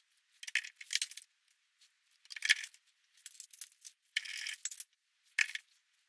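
Sped-up sound of a screwdriver driving small metal screws into a switch cover plate: short, irregular bursts of high-pitched metallic clicking and scraping.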